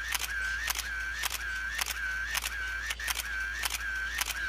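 GoPro Hero 7 action camera's electronic shutter sound repeating about twice a second: a sharp click followed by a short tone each time, as it takes photo after photo.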